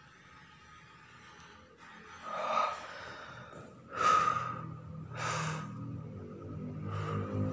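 A person breathing heavily: three loud gasping breaths about a second apart, after a quiet start. Low background music comes in near the end.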